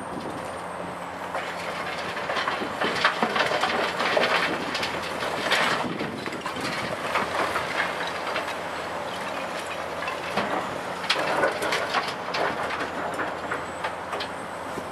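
Caterpillar 345C L UHD demolition excavator's diesel engine running steadily while broken brick and concrete clatter and crash, first as the bucket digs into the rubble pile and again about eleven seconds in as the load is dropped into a dump truck's steel bed.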